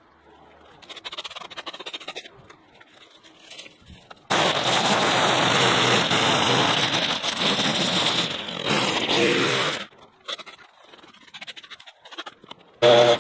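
Light scraping and rustling of garden debris, then a handheld cordless garden power tool runs in one burst of about five and a half seconds, starting and stopping abruptly, followed by more light scraping. Near the end a loud, steady pitched drone starts suddenly.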